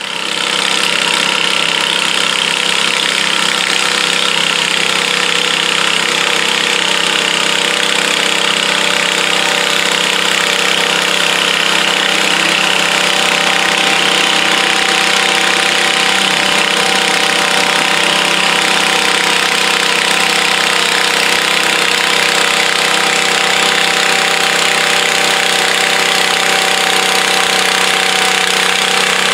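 Garden tractor's small engine running steadily.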